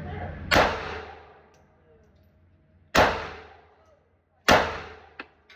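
Three pistol shots, spaced unevenly: the second comes about two and a half seconds after the first, the third a second and a half later. Each is a sharp crack with a ringing echo, and two small metallic clicks follow near the end.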